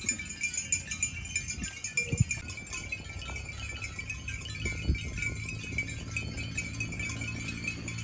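Bells hung on a herd of water buffalo jingling and clinking without a break as the animals walk, many small tinkles overlapping.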